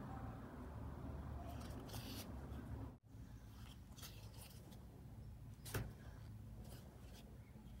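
Faint handling noise as yarn and a needle are drawn through crocheted stitches: a few soft rustles and one sharper tick about six seconds in, over a low steady hum.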